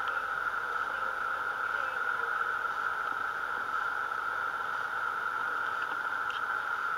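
Steady background hiss that stays even throughout, with a couple of faint light ticks about six seconds in.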